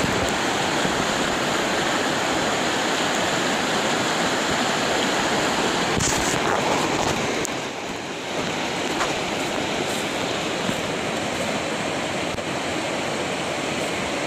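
Steady rush of whitewater river rapids pouring over rocks, dipping slightly about eight seconds in.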